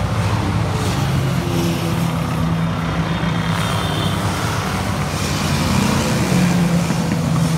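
Motorcycles riding past one after another at steady motorway speed, their engines running with a steady low drone, over general traffic noise.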